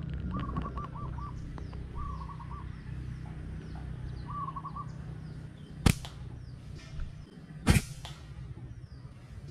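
Two sharp cracks of a rubber-band slingshot being shot, about two seconds apart. Before them, a zebra dove coos in short repeated phrases while small birds chirp faintly.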